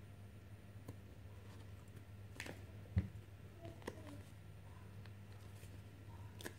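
Faint handling of plastic toy building blocks: a few light clicks and one soft thump about three seconds in, as fingers press stickers onto the pieces, over a low steady hum.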